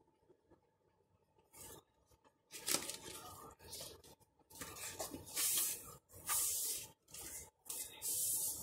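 Paper and cardboard packaging rustling and scraping as it is handled and a sheet is slid out of the box, in a run of short bursts that start about one and a half seconds in and grow louder towards the end.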